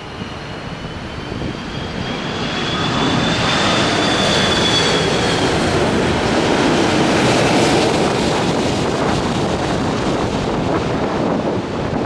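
Jet airliner passing low overhead on its landing approach: a high turbofan whine that bends in pitch and fades about five seconds in, over a rushing engine noise that builds to its loudest in the middle and stays loud.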